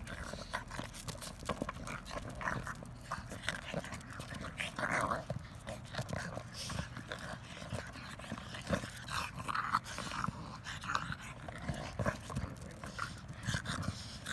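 Two dogs, a Boston terrier and a small short-haired dog, playing rough over a basketball: a string of short, irregular dog noises and hard breaths, with the ball and paws scuffing on the asphalt.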